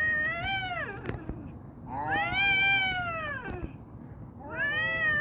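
Cats caterwauling in a fight standoff: three long, drawn-out yowls, each rising and then falling in pitch. The middle one is the longest and loudest, and the last starts near the end.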